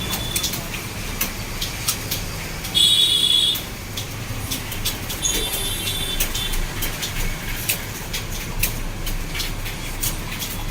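Fast typing on a computer keyboard: rapid, irregular key clicks over a steady low hum of traffic. About three seconds in a short, loud high-pitched tone sounds, with a fainter one near the middle.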